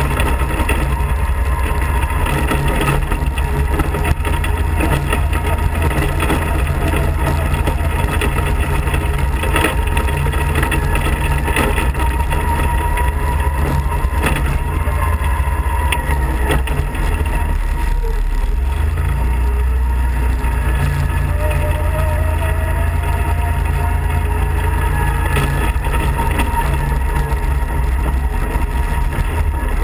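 Off-road kart engine droning steadily as the kart drives along a wet gravel road. The drone is loud and deep, with no let-up.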